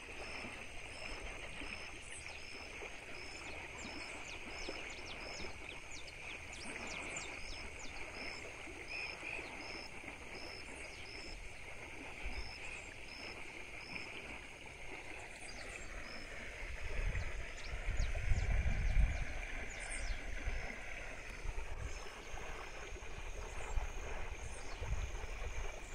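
Steady rushing of a muddy river running high after heavy rain. A faint high chirp repeats about once a second over it, and a low rumble rises for a few seconds past the middle.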